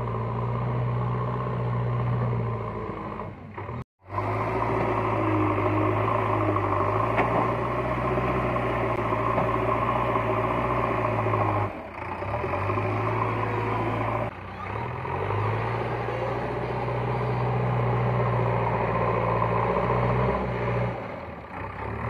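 Diesel engine of a JCB 3DX backhoe loader running steadily as the machine digs and moves soil. The sound breaks off briefly about four seconds in, with shorter dips later.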